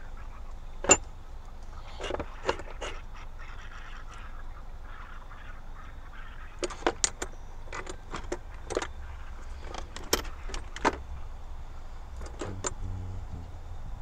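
Scattered clicks and clattering of hard plastic and metal as tools and a plastic impact-wrench case are handled and rummaged through, in short clusters, over a low steady rumble.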